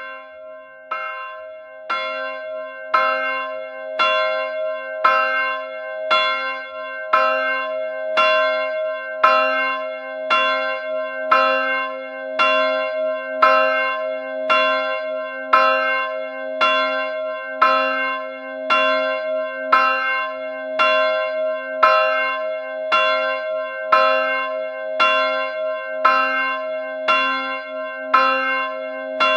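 A single church bell tolling, struck about once a second at the same pitch, each stroke ringing on into the next.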